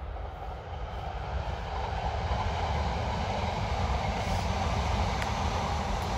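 Class 333 electric multiple-unit passenger train passing close by: a rushing rumble of wheels on rails that builds over the first few seconds and peaks around four to five seconds in, with a few faint ticks near the end.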